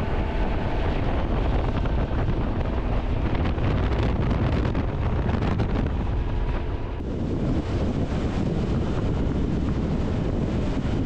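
Wind rushing and buffeting over the microphone of a motorcycle riding at road speed in strong gusty wind, a dense, loud, even rumble. Its character shifts slightly about seven seconds in.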